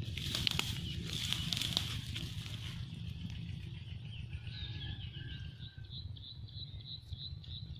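Grass and a mesh net trap rustling and crackling as it is handled and pulled up out of the vegetation, over a low rumble. Past the middle the rustling dies down and a rapid series of high chirps sets in.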